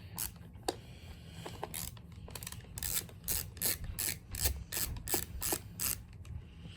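Ratcheting screwdriver clicking as it is worked back and forth to back screws out of a hair dryer's housing. The ratchet sounds in short bursts of clicks, sparse at first, then a steady run of about three a second.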